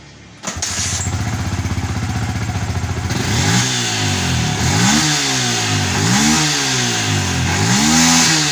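A Yamaha Vixion's 150 cc single-cylinder fuel-injected engine starts about half a second in, idles briefly, then is revved up and down repeatedly with the throttle. It takes the throttle without dying, now that its faulty regulator-rectifier has been replaced.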